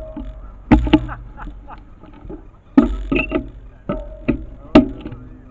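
Sharp knocks and clunks, about seven in five seconds, each with a short ringing tail, as the mountain bike and its mounted camera are jostled.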